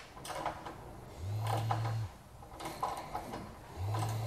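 Two short runs of a small electric motor, each about a second long, a low steady hum that starts and stops abruptly, with light clicks and rattles of metal parts between the runs.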